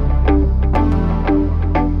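Background music: short repeated notes, about two a second, over a sustained deep bass.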